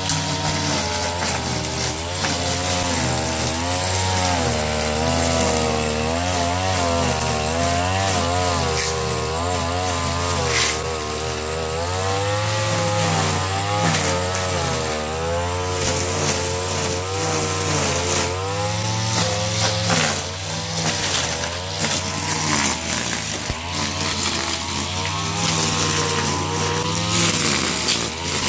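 Mitsubishi TL33 two-stroke brush cutter running hard with a serrated nylon trimmer line spinning through grass. The engine pitch keeps wavering up and down as the line meets the grass.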